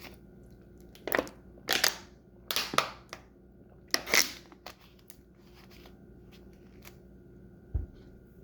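A person drinking water: about five short gulping swallows in the first half, then a single low thump near the end.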